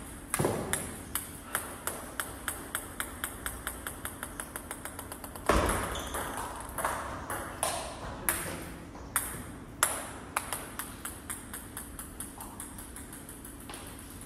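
Table tennis ball sounds: a run of light, evenly spaced taps that fade away, then about five seconds in a sharp hit starts a rally of ball strikes on the rubber paddles and bounces on the table, followed by fainter ticks.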